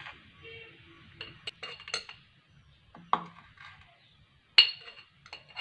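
A metal spoon clinking against a glass jar and scraping a plate while ground spice powder is spooned into the jar: about six sharp, ringing clinks, the loudest about four and a half seconds in.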